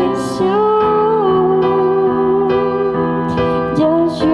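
A voice singing long held notes over keyboard accompaniment, likely electric piano chords.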